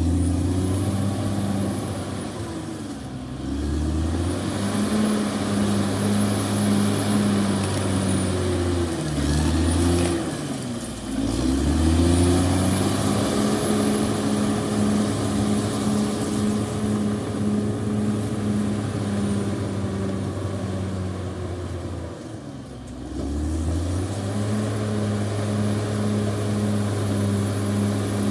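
CAT D6R XL bulldozer's diesel engine working, its revs dipping and climbing back several times: sharply about three seconds in, around ten seconds in, and again about twenty-two seconds in. A faint high whistle rides over the engine when the revs are up.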